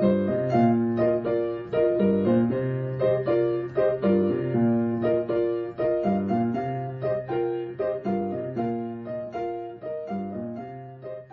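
Background piano music: a gentle melody of evenly spaced single notes over sustained lower notes, gradually fading out near the end.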